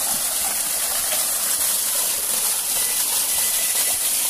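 Steady rush of a shallow, fast-flowing creek, an even hiss of running water.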